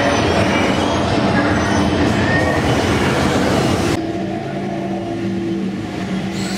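Dark-ride vehicle rolling along its track, a loud steady rumble and clatter with some wheel squeal. About two-thirds through it gives way abruptly to a quieter steady hum with low held tones.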